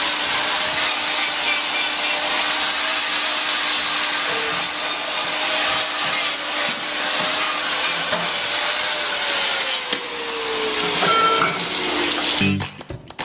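Angle grinder with a hoof-trimming disc grinding down the horn of a cow's hoof: a loud, continuous rasping with a motor whine that sags in pitch around ten seconds in. Music cuts in just before the end.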